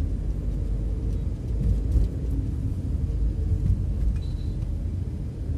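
Steady low rumble of a moving car's engine and tyre noise on the road.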